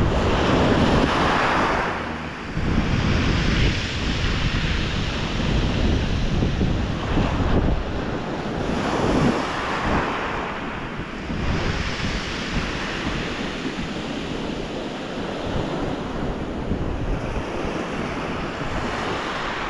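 Rough sea waves breaking on a rocky shore, coming in surges every few seconds, under strong gale-force wind buffeting the microphone with a low rumble.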